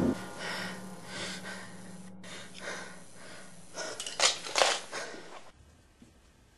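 A person breathing heavily in a string of ragged breaths, with the two loudest about four and a half seconds in; the breathing stops abruptly about a second before the end.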